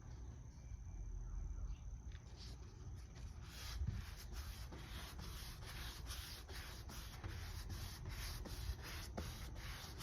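Rhythmic back-and-forth rubbing strokes by hand on a furniture surface, like hand sanding, about two and a half strokes a second, becoming plain a couple of seconds in.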